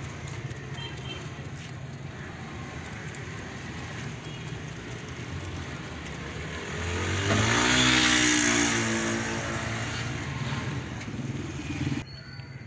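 A motor vehicle's engine passes by over a steady low rumble, swelling to its loudest about eight seconds in and fading over the next two seconds. The background sound cuts off abruptly near the end.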